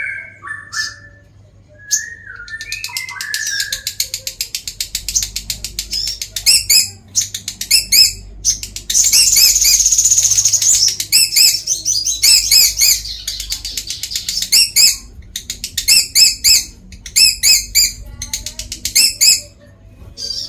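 Lovebird singing its long rapid chatter (ngekek): a fast run of high, scratchy notes that becomes unbroken and loudest about halfway through, then goes on in bursts. A few lower gliding whistles come in the first seconds.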